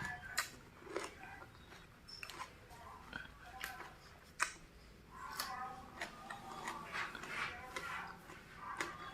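Close-up eating of raw vegetables: irregular sharp, crisp crunches with wet chewing and mouth sounds between them.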